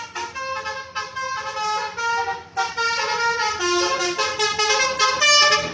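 Basuri telolet musical horn on a bus playing a quick melody of short, changing notes; it gets louder about two and a half seconds in.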